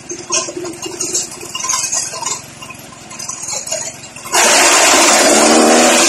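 Irregular rustling and crunching, then a cow's loud, low moo about four seconds in, lasting nearly two seconds.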